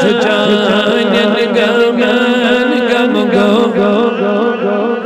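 A man singing a manqabat, a Sufi devotional praise song, holding and ornamenting a long vowel without words over a steady sustained drone.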